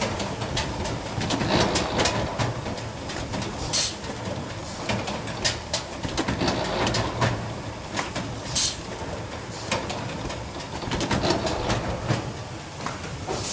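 Sponge-board production machine with two-way deviation correction running: conveyor belts and guide mechanisms clattering steadily, with frequent sharp clicks and knocks and a few short hisses.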